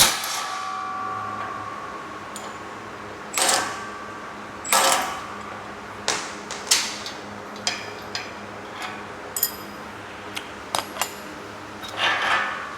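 A knock on the steel rack that rings on for about a second, then a string of separate metal clinks and knocks from galvanized nuts, bolts and washers being handled as the rack's pull-up bar is unbolted.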